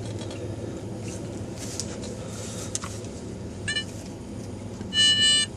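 Metal detector sounding off on a target: a short electronic tone about three and a half seconds in, then a loud, pitched beep near the end, over a steady low background rumble.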